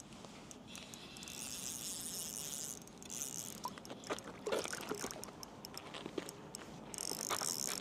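Spinning reel's drag slipping and the reel being cranked as a strong hooked fish pulls line. There is a high hiss in the first few seconds and again near the end, with scattered clicks between.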